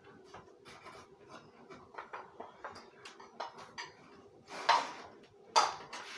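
Small objects being handled and set down: a run of light, irregular clicks and knocks, with two louder knocks about a second apart near the end.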